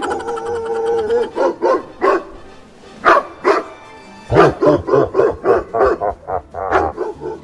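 Recorded dog barking played as a fake bark: a few barks, then a rapid run of barks about three a second from about four seconds in. Music sets in suddenly at the start.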